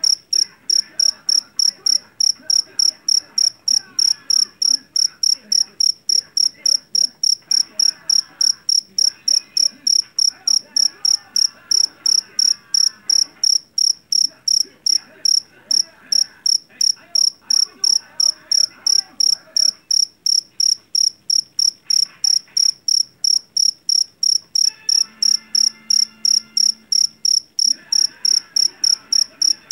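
A jangkrik jeliteng (Javanese field cricket) chirping loud and shrill in a steady, even rhythm of about three chirps a second.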